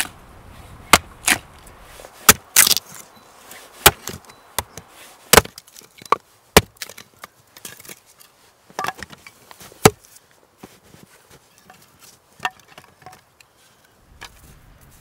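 Axe splitting firewood into kindling on a wooden chopping block: sharp chops of the blade into the wood, roughly one a second, with lighter knocks between them. After about ten seconds the chops thin out and grow softer.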